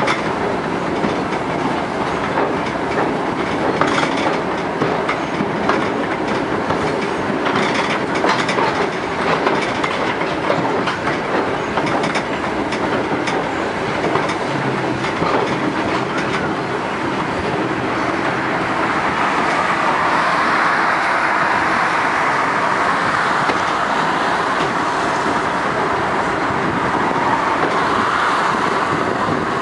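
Train running along the track, its wheels clicking sharply over rail joints now and then. In the second half a higher, steadier rushing noise takes over.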